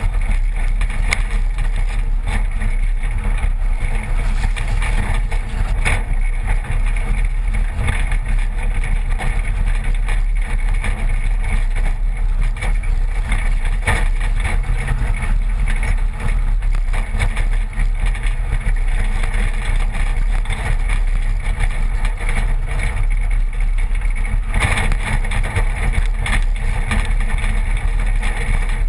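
Road noise of a 1986 Toyota pickup driving a rocky dirt track, heard from a camera mounted low on its side: tyres on gravel over a steady low rumble, with a few knocks from bumps.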